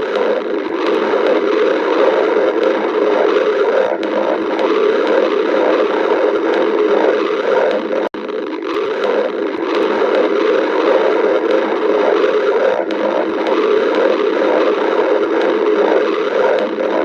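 Human stomach growling from hunger: continuous gurgling and rumbling that cuts out for an instant about eight seconds in.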